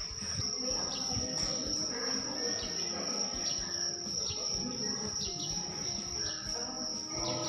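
Insects, likely crickets or cicadas, keeping up a steady, high-pitched drone, over indistinct background voices.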